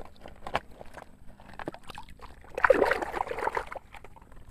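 Hands digging through wet sand in a toy dump truck's bed: scattered light clicks and taps of plastic toys, with a denser scraping rustle of sand about two and a half seconds in that lasts about a second.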